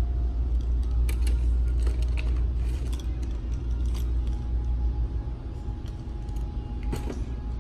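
A steady low rumble with scattered sharp clicks and light clinks, from packaged pet leashes and collars being handled on their display hooks.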